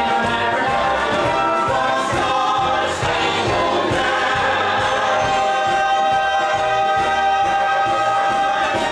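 USO-style show tune sung live by several voices together in harmony with musical accompaniment, holding a long note through the second half.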